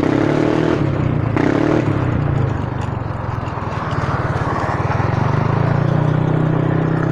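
Yamaha NMAX scooter's single-cylinder engine breathing through an aftermarket power pipe exhaust, pulling away while ridden. The engine note rises twice in the first two seconds, then holds steady while cruising.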